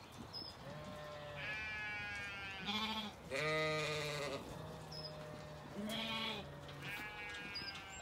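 Zwartbles sheep bleating again and again, about five calls, some low and some high-pitched, overlapping; the loudest, a low call, comes about three and a half seconds in. Faint short bird chirps in between.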